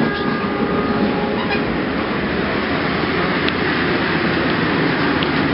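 Moving passenger train heard from inside a third-class carriage: the steady rumble and rattle of the train running on the rails, with a faint brief whine near the start.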